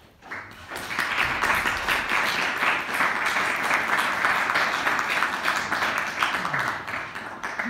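Audience applauding. It starts up about half a second in and dies away near the end.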